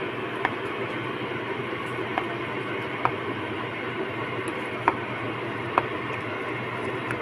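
Electric whisk running steadily in a pot of soft boiled potatoes and egg, with a few sharp, irregular clicks as the wire loops knock against the pot.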